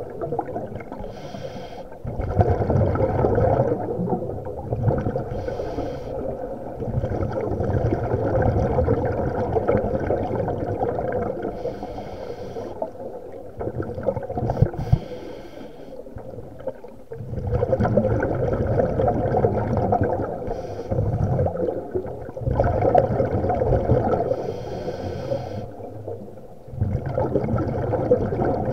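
Muffled underwater water noise picked up by a submerged camera as a swimmer moves through a lake. It comes in surges of several seconds with brief lulls between them.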